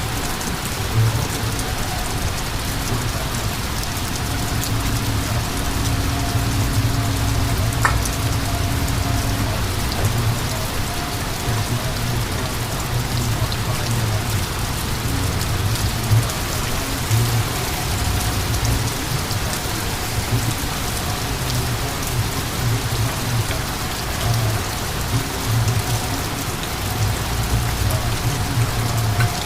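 Thunderstorm rain falling steadily as the shower picks back up, with a low rumble underneath.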